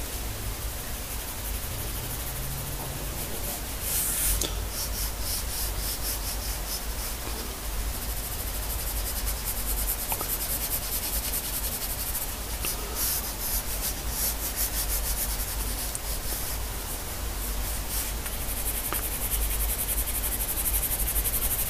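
Graphite pencil scratching across drawing paper in quick, repeated hatching and shading strokes. The strokes come in runs, with a dense burst about four seconds in and busier stroking from about eight seconds on.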